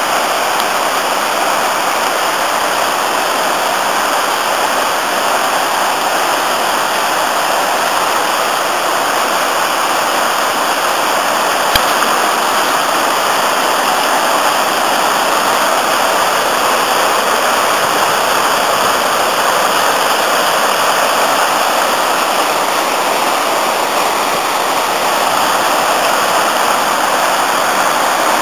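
River Afon Artro in spate after heavy rain, pouring over broad rapids: a loud, steady rush of white water. One brief click sounds near the middle.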